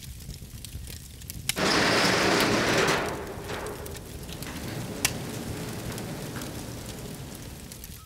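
Wood fire burning in a cremation pit, rumbling with scattered sharp crackles and pops. About one and a half seconds in, a loud rushing surge of flame rises and holds for about a second and a half, then fades back to a lower steady burn.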